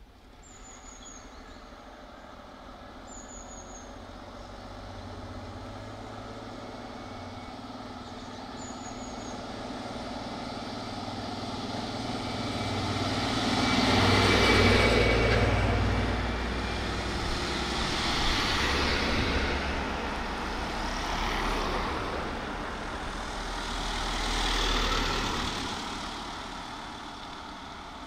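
Heavy trucks, fire engines, driving past one after another: the sound builds to its loudest about halfway through, then swells three more times as further vehicles pass, and fades near the end.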